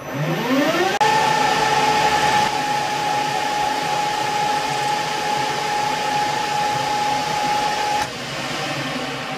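Metal lathe spindle starting up with a whine that rises in pitch over about a second, then running steadily with a hiss while a light turning pass is taken on the outside diameter of a steel part. About eight seconds in the motor is switched off: the whine stops abruptly and the chuck coasts down.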